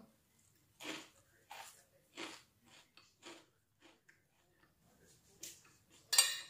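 A person chewing crunchy fried rice crust (intip): a string of short, separate crunches about every half second to second. A short, louder burst comes near the end.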